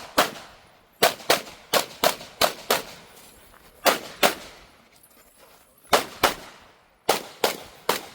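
A Sig Sauer P320 pistol with a Grayguns build and SXG steel lower firing rapid shots in quick pairs, about sixteen in all, with pauses of one to one and a half seconds between pairs as the shooter moves from target to target in a practical shooting stage.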